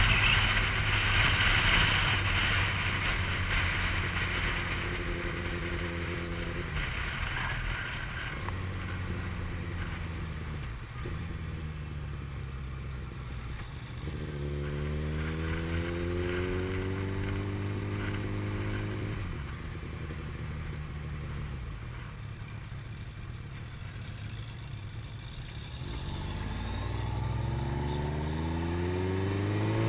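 Sport motorcycle ridden on the road, heard from the rider's helmet: wind rush at first, then the engine running steadily while slowing. The engine pitch rises as it speeds up about halfway through and again, more sharply, near the end.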